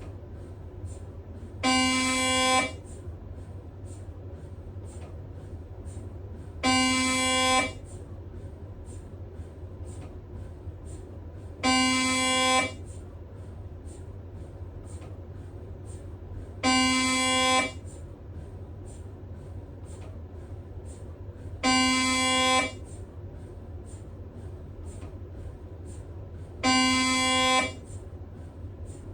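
Siemens Magnetom Spectra MRI scanner's gradient coils sounding six loud, one-second buzzing tones at a steady pitch, evenly spaced about five seconds apart. Between them there is a steady low hum and faint rapid ticking.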